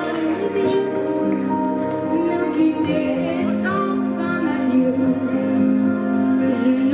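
Live pop band playing with singers, a woman's voice prominent, holding sung notes over electric guitar and drums.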